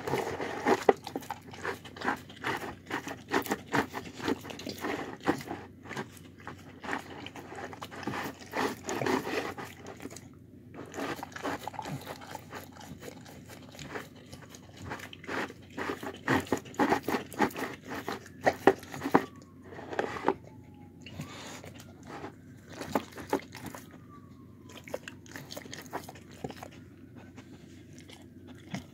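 A dog eating from a plastic bowl, crunching and chomping a meal of chicken, carrot, rice and watermelon in quick, dense bites that thin out to sparser chews in the last third.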